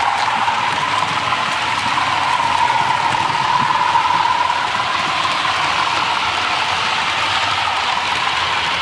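Model trains running on the layout: a steady whir from the locomotive motors with wheels rolling over the track, with a hum that wavers slowly in pitch.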